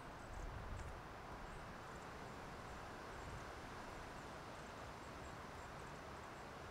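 Faint outdoor ambience: a steady low rumble and hiss, with faint short high chirps scattered throughout.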